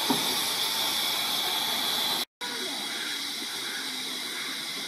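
Steady hiss of steam escaping from RHDR No. 4 The Bug, a 15-inch-gauge 0-4-0 steam locomotive standing on the turntable. The sound cuts out for a moment a little before halfway through, then the hiss resumes slightly quieter.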